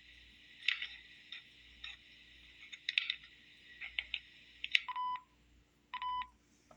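Scratching and clicking as fingers rub and fumble against a handheld digital voice recorder, followed by two short electronic beeps from the recorder's buttons about a second apart near the end. The handler himself is unsure whether the scratching came from his thumb rubbing on the recorder.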